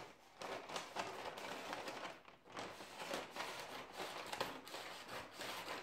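Scissors cutting along a sheet of brown kraft paper, the paper crinkling as it is cut and pressed flat: a run of short crackly snips and rustles.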